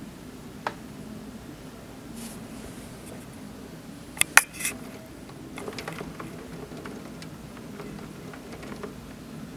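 Early thunderstorm rain: scattered drops tapping on a surface close to the microphone, the loudest a quick cluster of three sharp taps about four seconds in, over a steady low background rush.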